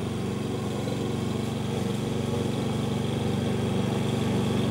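Oleo-Mac petrol walk-behind lawn mower engine running at a steady speed while the mower is pushed across the grass.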